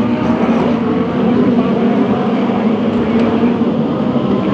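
DTM GT3 race cars' engines running on the circuit, a loud steady mix of several engines.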